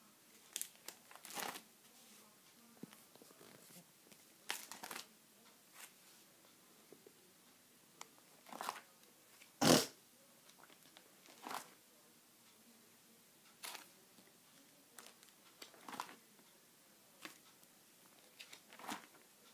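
Pages of clear plastic sheet protectors in a ring binder being turned one after another, each turn a short crinkle or swish of plastic, about a dozen at uneven intervals, the loudest near the middle.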